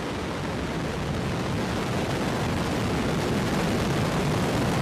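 Relativity Space Terran 1 rocket's nine methane-fuelled Aeon first-stage engines at liftoff: a steady crackling rumble of rocket exhaust that slowly grows louder as the rocket climbs off the pad.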